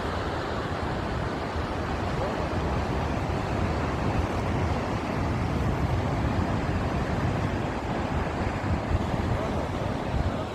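Storm waves breaking as a steady rush, with gusty squall wind buffeting the microphone.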